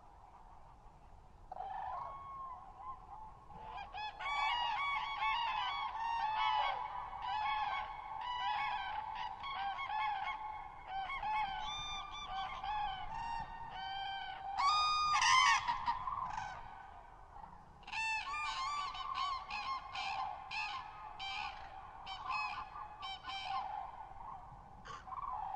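A flock of common cranes calling, many overlapping bugling calls, busiest from about four seconds in, with the loudest call a little past the middle.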